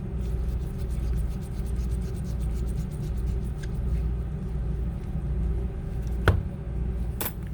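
Small screwdriver backing out the pentalobe screws at the bottom of an iPhone 8: fast, light, even ticking for the first three seconds or so. Two sharp clicks follow near the end, over a steady low background rumble.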